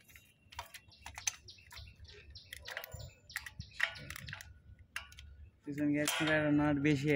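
Scattered light clicks and taps of hand tools on a tractor engine's cylinder head. A man's voice comes in about six seconds in.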